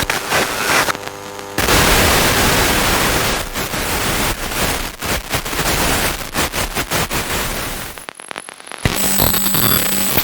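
Radio static and interference: loud crackling hiss that breaks up unevenly, with a short humming buzz early on giving way to a dense burst of static about a second and a half in. Near the end the static drops out briefly, then a steady electronic buzz with a hum comes in.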